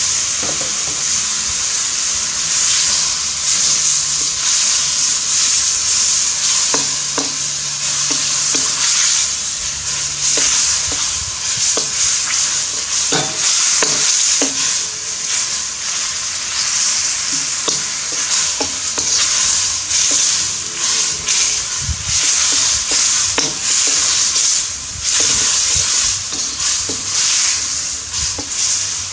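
Chicken and broccoli stir-fry sizzling in a hot round-bottom wok, with a steady hiss, while a metal spatula scrapes and clanks against the wok again and again as the food is stirred.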